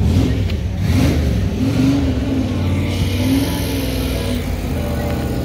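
Car engine running nearby, its pitch rising and falling about once a second as it is revved over a steady low rumble.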